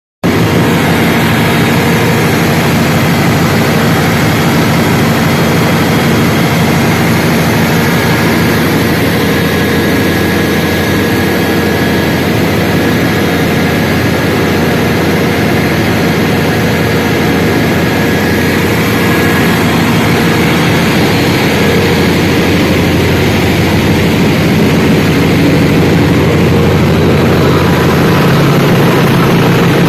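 Cummins 1000 kVA diesel generator set running at a steady speed: a loud, even engine drone with a constant hum.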